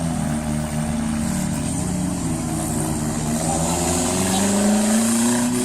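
Four-cylinder demolition derby car engines revving hard, their pitch climbing toward the end.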